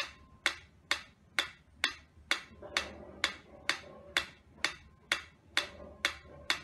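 Mechanical pyramid metronome ticking steadily at a brisk tempo, about two sharp clicks a second.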